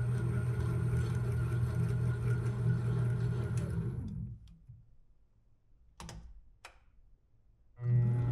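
Benchtop lathe running with the chuck turning during a thread-cutting pass. About four seconds in it is switched off and its hum falls away as the spindle coasts down. Two sharp clicks follow in the quiet, and near the end the motor starts again and quickly spins back up to a steady hum.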